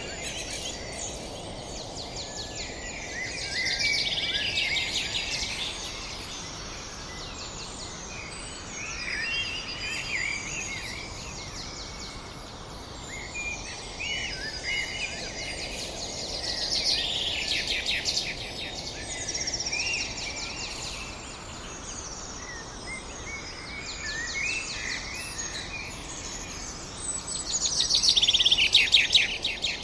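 Birds singing: many short chirps and fast trills over a steady background hiss. The trills swell louder three times, about 4, 17 and 28 seconds in, the last time loudest.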